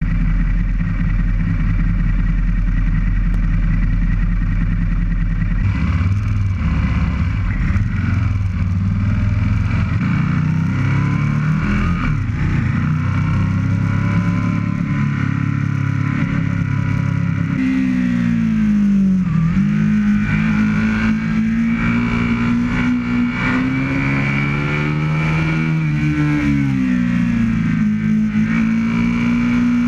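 Aprilia RSV Mille's 998 cc V-twin engine heard from the bike itself, running steadily at low speed and then accelerating. In the second half the engine pitch drops and climbs again twice as it pulls up through the gears.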